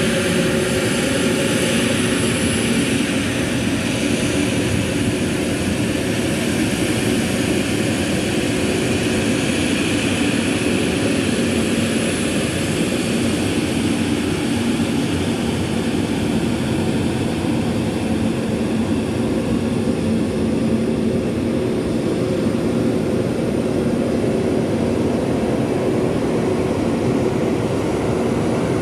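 Jet engines of an Airbus A320neo airliner running steadily on the runway: a continuous rumble with a steady hum and a faint high whine, holding an even level without spooling up.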